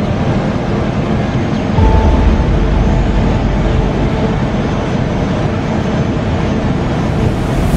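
Steady rumble and rush of airflow and engines on an Airbus A320 flight deck during approach, growing louder and deeper about two seconds in, with a brief thin tone at the same moment. A short louder rush comes at the very end.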